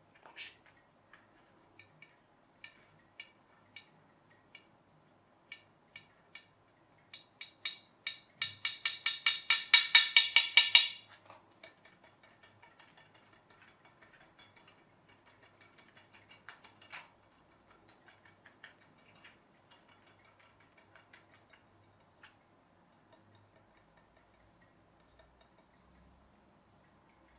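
Sharp clicks or taps every second or so, then a fast, loud run of clicks lasting about three seconds partway through, settling into faint quick ticking.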